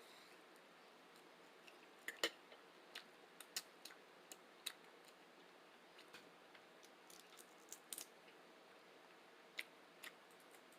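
Someone eating close to the microphone: about a dozen short, sharp mouth clicks and smacks at irregular intervals, the loudest about two seconds in, over a quiet background.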